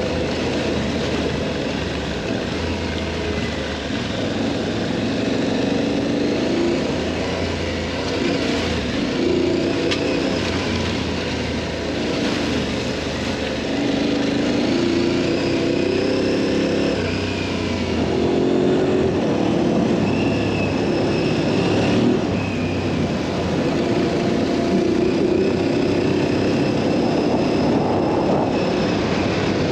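Adventure motorcycle engine running under load on an off-road trail, its revs repeatedly climbing and dropping as the rider accelerates and rolls off, over a steady rush of wind and tyre noise.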